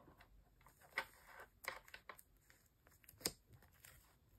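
Faint, scattered clicks and rustles of plastic photocard sleeves being handled and slipped into a binder's pocket page, the sharpest tick a little past three seconds in.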